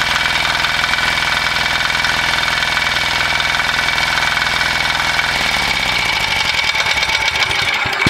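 A 6 hp HD300D (178F) 296 cc single-cylinder diesel engine runs steadily at about mid throttle. About five seconds in, its speed drops away and the running breaks up into separate, slowing knocks, like an engine winding down after shut-off.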